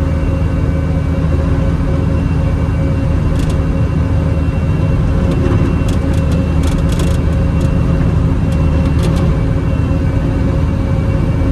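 Bobcat T650 skid steer's diesel engine running steadily under load, driving a Brushcat 72-inch rotary cutter. A scatter of short clicks and ticks comes through the drone in the middle.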